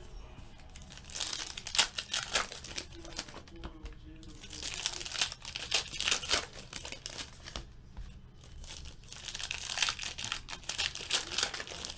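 Sealed trading-card packs being torn open by hand, their plastic wrappers crinkling and tearing in three spells of rustling.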